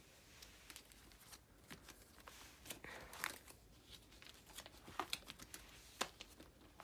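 Faint crinkling and rustling of plastic sleeve pages in a ring binder being turned and handled, with scattered light clicks and a longer rustle about three seconds in.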